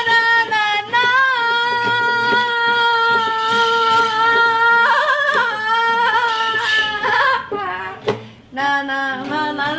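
A woman singing without words, holding one long high note for several seconds and then moving through shorter notes. She breaks off briefly about eight seconds in and starts again.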